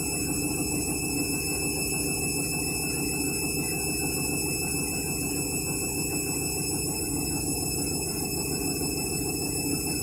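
Candy front-loading washing machine on its 400 RPM delicate spin: the drum turning with a steady motor hum that holds even throughout.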